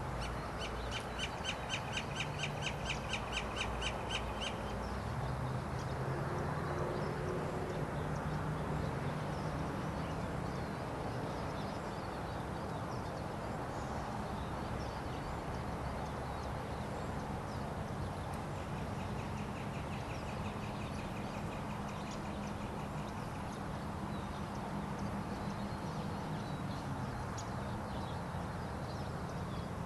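A bird's rapid run of evenly repeated harsh notes, about four a second for three to four seconds, and a fainter run like it about 20 seconds in, over a steady low rumble.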